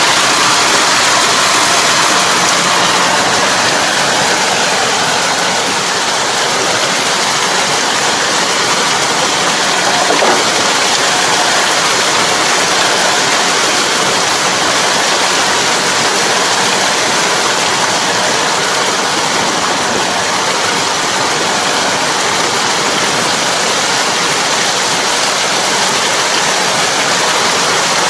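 Kobashi rotary puddling harrow churning mud and water in a flooded rice paddy behind a semi-crawler tractor: a steady, loud rushing and splashing of water.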